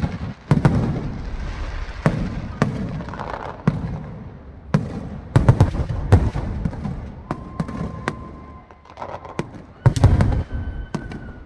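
Aerial fireworks: a rapid run of sharp bangs and deep shell bursts with crackling between them, heaviest in clusters near the start, in the middle and near the end. A thin steady whistle is held for over a second past the middle, and another comes near the end.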